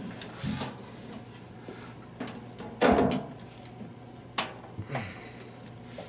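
Knocks and clunks of a microwave oven's bare sheet-metal chassis being handled and tipped over, with a heavier thump about three seconds in and a sharp knock a little later.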